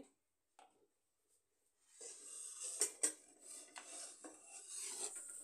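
Faint scraping and rubbing as a hand presses a stuffed paratha flat on a hot iron tawa, with a soft hiss and two light clinks about three seconds in. The first two seconds are near silent.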